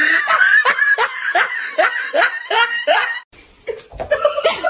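Rapid, rhythmic laughing, about three bursts a second, for roughly three seconds. After a short break comes a drawn-out voice-like call near the end.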